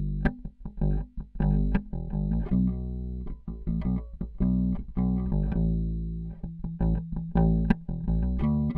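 Squier Vintage Modified Jaguar Bass played fingerstyle with its Precision and Jazz pickups blended, a line of plucked bass notes with some held low notes between quicker runs.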